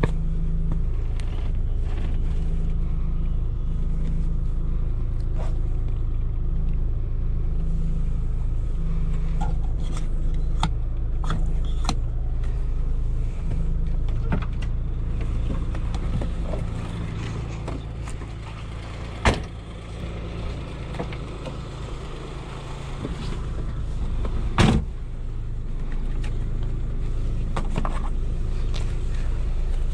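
Suzuki Khyber's 993 cc three-cylinder G10 engine idling with the car standing still. Its sound drops off for several seconds past the middle and then picks back up, as an engine that barely keeps going does. Two sharp knocks come in the second half.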